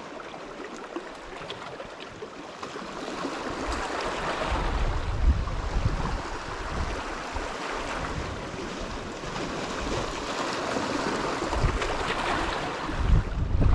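Sea and wind noise: a steady rushing wash of surf, with wind gusts rumbling on the microphone, strongest about five seconds in and near the end.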